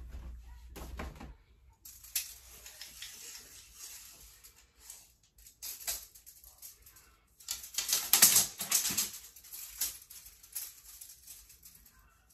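Steel tape measure being pulled out and handled, its blade rattling and clicking in irregular bursts, loudest about eight seconds in.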